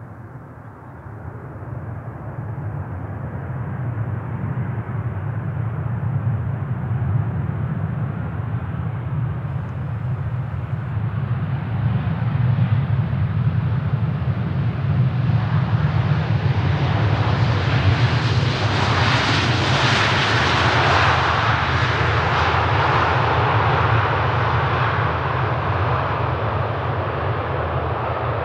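Jet airliner's engines, a deep rumble with a rising hiss that grows steadily louder, peaks about twenty seconds in, then eases slightly.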